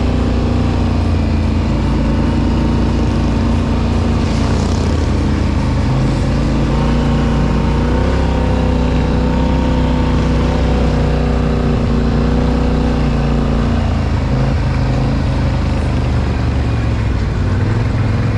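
Off-road vehicle engine running steadily under light throttle, its pitch rising a little about eight seconds in and dropping back a few seconds later.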